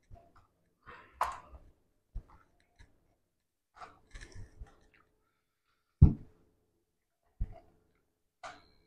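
Plastic clicks and handling noises from a DJI Mini 4 Pro drone as its folding arms are swung out and parts fitted, with a sharp knock about six seconds in and a smaller one over a second later.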